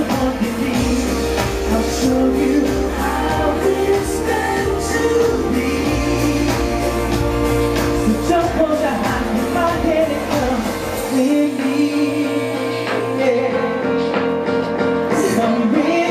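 Male vocalist singing live into a handheld microphone over pop music accompaniment; the deep bass drops out about eleven seconds in, leaving the voice over lighter backing.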